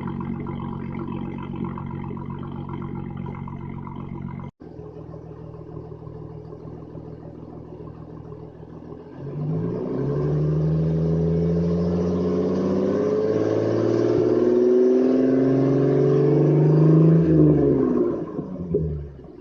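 Ford Mustang 3.8 L V6 with shorty headers and no muffler, running cold. It idles, then about nine seconds in it is revved up and held, dips briefly, is revved and held again, and falls back to idle near the end.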